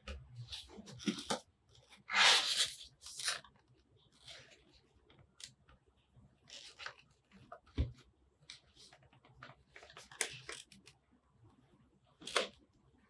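Hands handling a small closed cardboard product box: irregular scrapes and rustles of fingers and cardboard, the loudest scrape about two seconds in, and a dull knock about eight seconds in.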